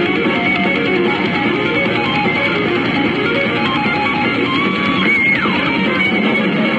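Loud music with a prominent electric guitar, played through the Aska Audio stacked loudspeaker system during an SPL (loudness) test.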